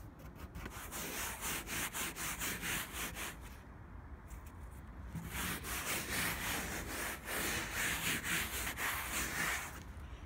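A bare hand rubbing and scraping hoarfrost off a car's hood and windscreen in quick, rapid strokes. The scraping comes in two stretches with a short pause near the middle.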